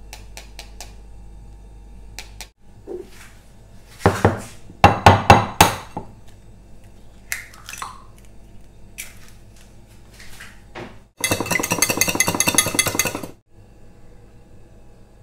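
Several sharp knocks, an egg being cracked against the rim of a glass bowl, then, about eleven seconds in, a metal wire whisk beating the egg in the glass bowl with rapid clinking for about two seconds.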